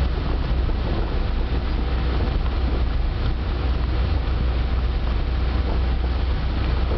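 Yellow ballast hopper wagons of a track-maintenance train rolling past close by: a steady rumble and clatter of wheels on rails, with wind on the microphone.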